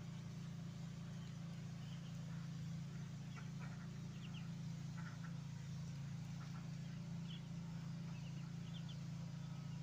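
Muscovy ducklings peeping in short, high chirps, a few at a time and now and then, over a steady low hum.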